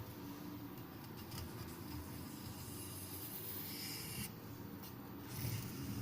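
Knife blade being stroked across a Black Arkansas sharpening stone, a soft scratchy rubbing that comes in repeated passes. This is the finishing stage, convexing the edge with a rocking motion and refining the scratch pattern.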